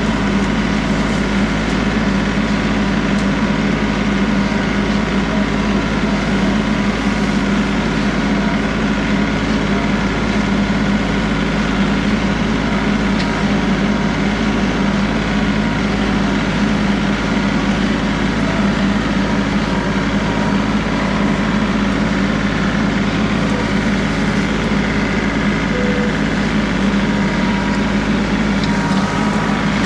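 John Deere 3038E compact tractor's three-cylinder diesel engine running steadily at a constant speed.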